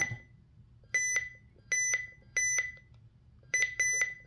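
RadioShack 12-259 handheld Public Alert weather radio giving short, high key beeps as its buttons are pressed to scroll through the setup menu: three beeps spaced apart, then three in quick succession near the end, each with a faint button click.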